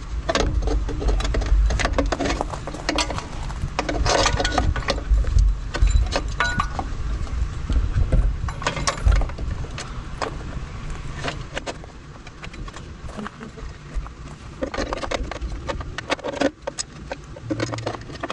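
E-bike battery mounting plate and its wiring being handled and pushed into place against the frame: scattered plastic clicks, taps and rattles over a steady low rumble.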